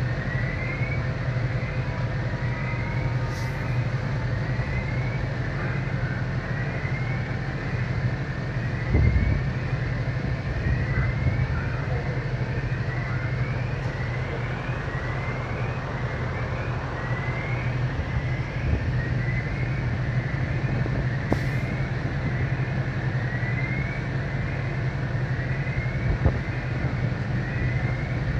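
Steady low drone of a fire engine's motor running at the kerb, with a short rising chirp repeating about once a second over it and one dull thump about nine seconds in.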